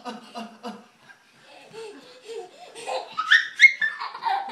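Laughter: a quick run of rhythmic laughs at the start, then a toddler's high-pitched, squealing laughter in the second half, the loudest part.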